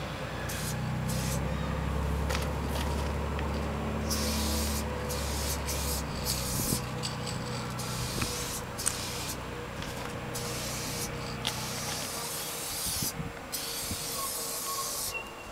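Aerosol spray-paint cans hissing in repeated bursts, some short and some held for a second or more, as graffiti is sprayed onto a wall. A low rumble runs under the first few seconds.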